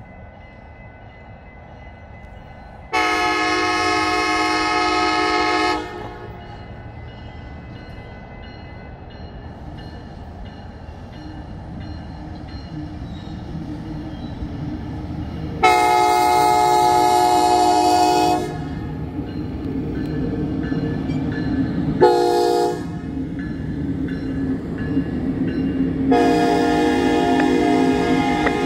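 Amtrak locomotive horn sounding a chord of several notes in the pattern long, long, short, long, the standard signal for a grade crossing. Under the horn, the rumble of the approaching train grows steadily louder.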